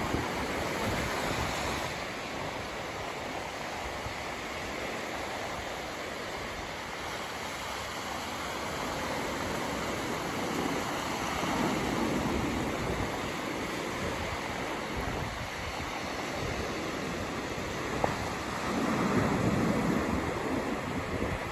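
Small ocean waves breaking and washing up a sandy beach: a steady surf hiss that swells louder twice, about halfway through and near the end.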